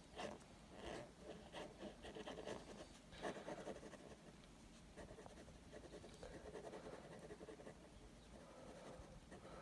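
Faint scratching of quick hatching strokes drawn on paper: a quick run of short strokes in the first few seconds, then softer, sparser ones.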